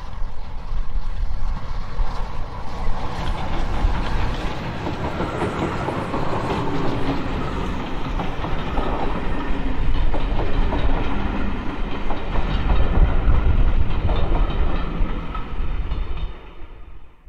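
Steam-hauled train behind Bulleid Battle of Britain class pacific 34053 Sir Keith Park running past, its wheels rumbling and clattering over the rail joints. It grows loudest about two-thirds of the way through, then eases off before cutting out abruptly.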